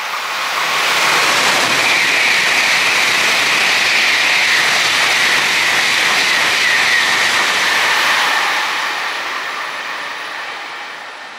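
An N700-series Tokaido Shinkansen train passing through the station at high speed. A loud, steady rush of air and running noise with a high hiss builds in the first second, holds for about seven seconds, then dies away near the end.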